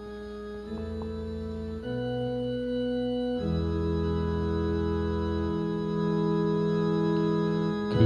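Organ-sounding keyboard playing the instrumental introduction to a hymn: held chords that change every second or two, growing gradually louder.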